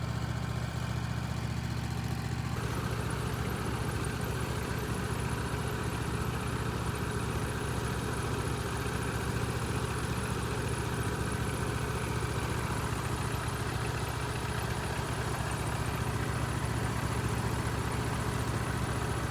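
Tractor engine running steadily, picking up a little about two and a half seconds in as it is brought closer to the log.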